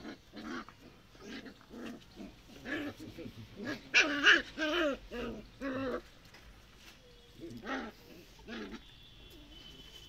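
Dogs playing, a puppy with its mother: a string of short pitched whines and grunting calls, coming closest together and loudest about four to six seconds in.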